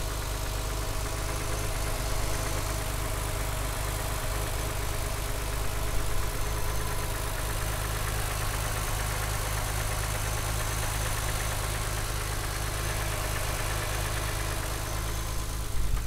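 BMW E36 M3's 3.0-litre inline-six, already warm, idling steadily, with a light rattle that the owner says every one of these engines has and is not bad.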